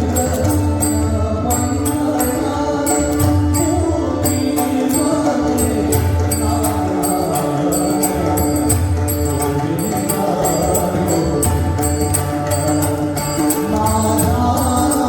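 Marathi abhang bhajan music: pakhawaj and tabla with evenly repeating metallic strokes keeping a steady beat under a sustained chanted melody.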